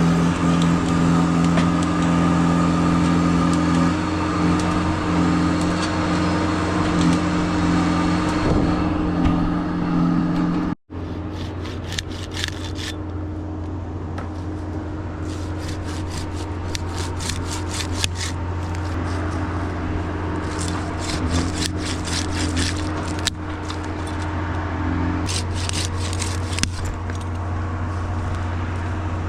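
A heavy vehicle engine running steadily at an even pitch. It drops out for an instant near eleven seconds, and scattered sharp clicks and crackles follow over it.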